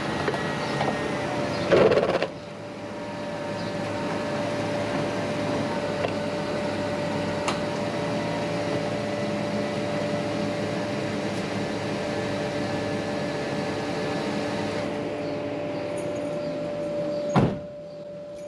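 2006 Chevrolet Silverado 1500 pickup running steadily as it is driven up onto ramps, with a brief louder push about two seconds in. Near the end a single sharp knock, a truck door shutting.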